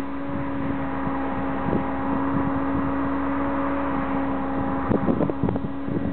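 A steady mechanical hum holding one pitch, over a broad rush of wind noise, with a few light knocks near the end.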